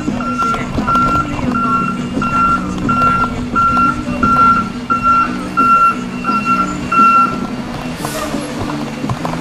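Cement mixer truck's backup beeper sounding a repeated single-tone beep as the truck reverses, over the steady low drone of its diesel engine. The beeping stops about seven and a half seconds in, and a short hiss follows.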